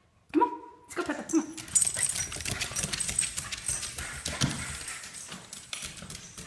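A dog gives a short yelping bark about half a second in and another about a second later, then a dense clatter of claws and paws scrabbling on hardwood stairs as the dogs run.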